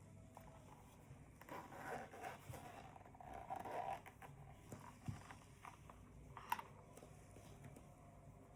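Faint rustling and scraping of packaging being handled, with scattered small clicks and one sharp click about six and a half seconds in.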